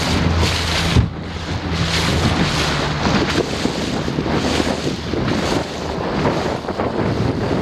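Wind buffeting the microphone over the rush and splash of choppy water, rising and falling in gusts. A low steady hum fades away about a second in, with a brief knock.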